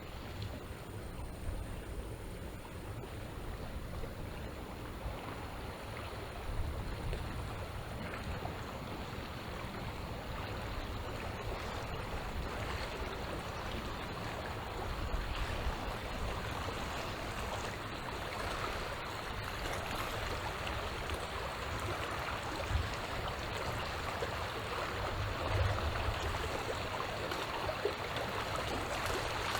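Small sea waves lapping and washing on the shore, a steady noisy wash that grows louder toward the end, with a low wind rumble on the microphone underneath.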